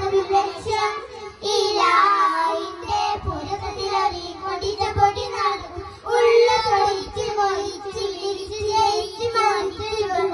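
A group of young boys singing a Malayalam Mappila song (mappilapattu) together, amplified through hand-held stage microphones.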